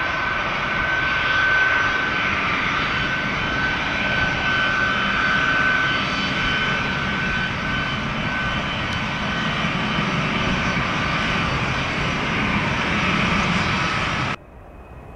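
Jet airliner engines at takeoff power: a loud, steady rush with a high whine that stops abruptly near the end.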